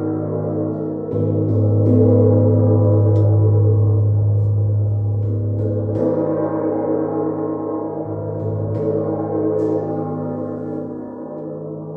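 Gong played in long, washing strokes, its many overtones ringing on over a strong low hum. It swells with a fresh stroke about a second in and again about six seconds in, then slowly dies back near the end.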